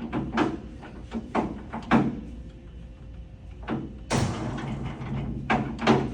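Blanchard 20-36 rotary surface grinder's magnetic chuck drive running with a steady low hum while the chuck speed is changed between settings. A series of short mechanical clunks and knocks sounds over the hum, with a louder one about four seconds in followed by about a second of rushing noise.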